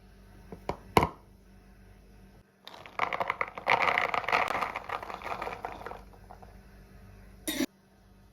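Objects being handled: a few sharp taps, then about three seconds of dense crackling rustle, and one short scrape near the end.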